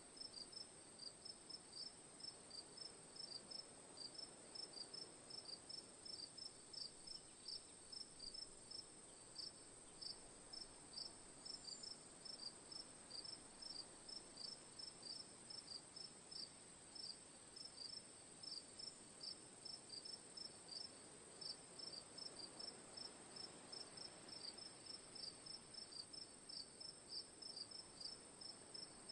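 Crickets chirping steadily: short high chirps repeating evenly, about two to three a second, over a steady high-pitched insect drone. Faint.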